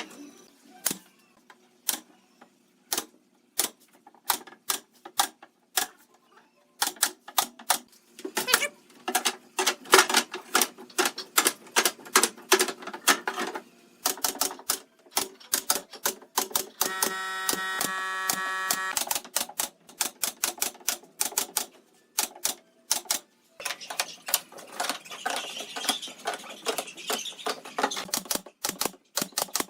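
Hand tools striking wood in quick, uneven runs of sharp taps and knocks, broken a little past halfway by a steady power-tool whine of about two seconds.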